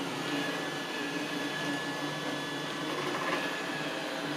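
iRobot Roomba 805 robot vacuum running: a steady whir of its motor and brushes with a faint high tone.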